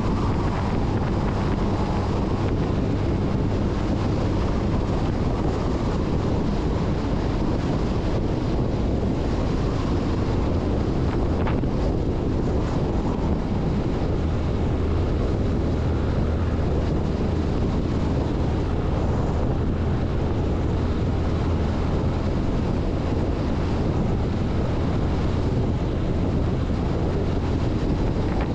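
Steady wind rushing over the microphone on the outside of a moving MAN LE 280 B 4x4 truck. Underneath it are the low, steady hum of the truck's diesel engine and the rumble of its tyres on a gravel road.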